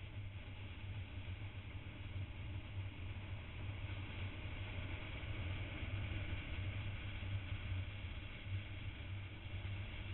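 Onboard sound of a motorcycle cruising: a steady low engine drone under continuous wind rush on the camera's microphone.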